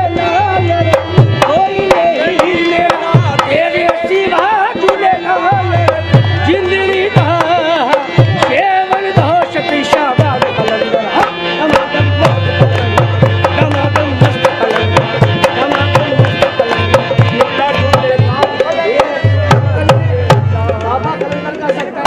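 Live qawwali music: a harmonium playing with a dholak drummed in quick, dense strokes, and a low held note that comes and goes.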